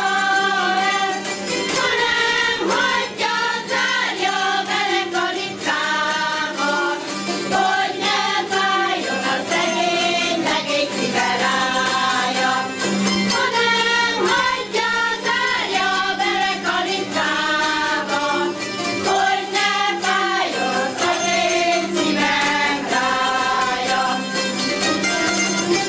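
Women's folk choir singing a Hungarian folk song, accompanied by a citera (Hungarian zither) ensemble strumming a steady rhythm.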